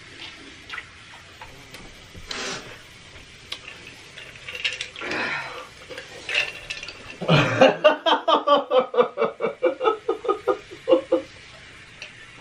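A person's voice making a fast, rattling run of pulses, about ten a second, for about four seconds starting about seven seconds in, after a few short breathy sounds.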